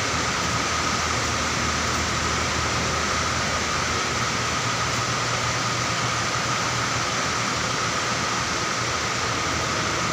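Steady, noisy drone of idling bus engines, with a thin high whine held throughout and no horn sounding.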